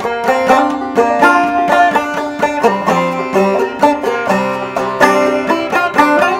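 Solo open-back banjo, built on a 1920s banjolin rim, played clawhammer style: a quick, even stream of plucked notes in an old-time modal tune.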